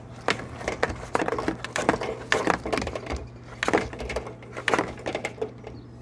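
Irregular light knocks and clicks, several a second, as a cable and hands bump against the window frame and sill while the cable is fed out the window. A window air conditioner's steady low hum runs underneath.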